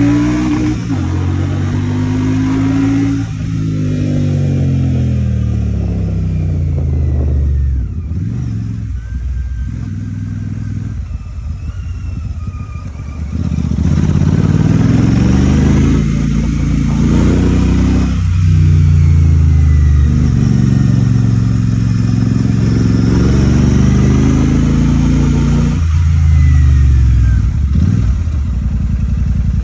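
Royal Enfield Shotgun 650's parallel-twin engine under way, its pitch climbing and then dropping again and again as it pulls through the gears and shifts. It eases off and runs quieter a few seconds in, then pulls harder and louder from about halfway.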